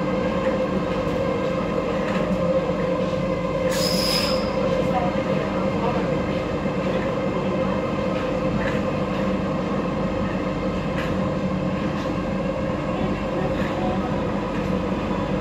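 MF 77 metro train running steadily through a tunnel, heard from inside the car: a constant hum from the motors over wheel-and-rail rumble, with faint clicks every second or two. A brief high squeal comes about four seconds in.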